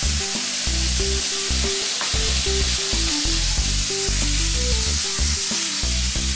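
Alcohol sizzling steadily in a hot stainless-steel pan with the seared steak's drippings, boiling down as it is stirred with a spatula. Background music plays underneath.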